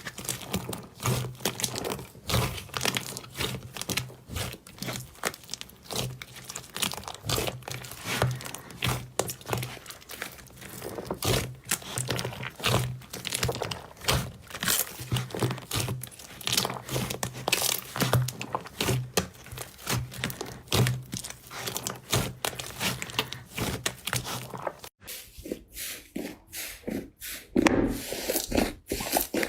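Slime being squeezed and poked by hand, giving a dense run of crinkly, crackling pops. About 25 seconds in, the pops become sparser.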